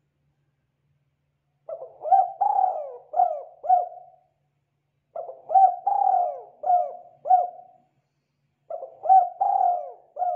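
Spotted dove (tekukur) cooing: three phrases of several gliding coo notes, about three and a half seconds apart, starting after a quiet second and a half.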